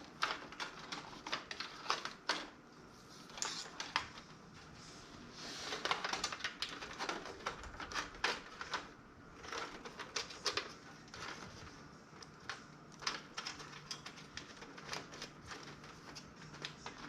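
Irregular clicks, taps and rustles of PC cables being pushed aside and tucked into place inside a toaster-oven PC case.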